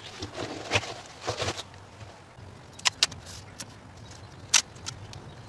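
Hand-work noises from fitting a water pipe: rustling and scraping for about a second and a half, then a few sharp clicks and taps, the loudest about three-quarters of the way through.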